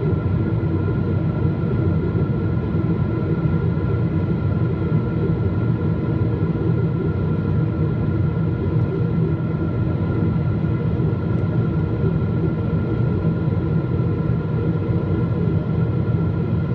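Cabin noise inside a Boeing 777-200 airliner during its descent: a steady low rumble of the jet engines and rushing air, with a few steady high tones from the engines running over it.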